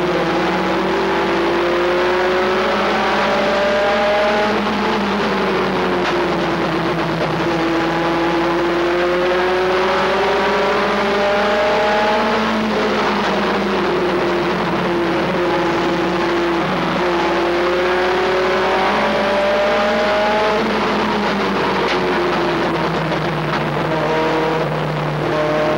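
Pickup race truck's engine at racing speed, heard from inside its cab. The engine note climbs along each straight and drops away into the turns, three times over.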